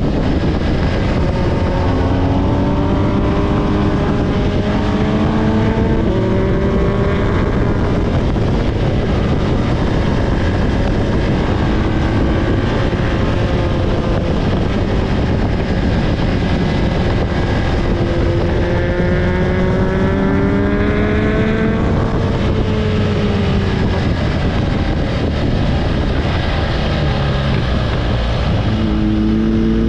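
Motor vehicle engine running over a loud, steady rumble. Its note rises and falls repeatedly as it revs up and eases off, with one long climb in pitch about two-thirds of the way through.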